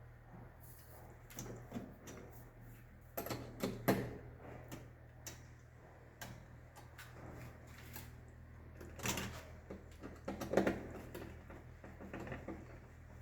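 Irregular small clicks, taps and rattles of hand work on a consumer unit's terminals and cables, with louder clusters of knocks about three seconds in and again around nine to eleven seconds in, over a low steady hum.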